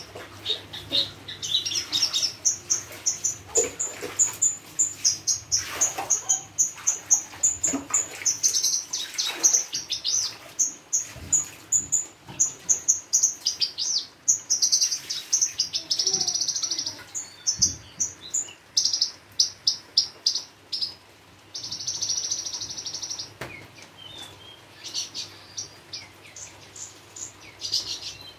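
Caged Javan bush lark (branjangan) singing a long, varied song of rapid high chirps and trills, rich in mimicked phrases, with a few buzzy rattling stretches in the second half.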